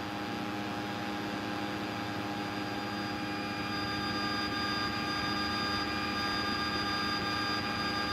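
Light aircraft's engine and propeller running steadily, heard from inside the cockpit as an even drone with a constant hum of tones over hiss.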